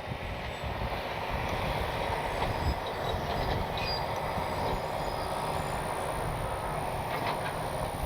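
Strong wind rumbling and buffeting on the microphone, a steady noise that comes in abruptly.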